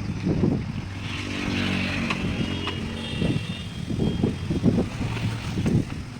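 Motor vehicle engines running, rising and falling in pulses, with a couple of sharp knocks about two seconds in.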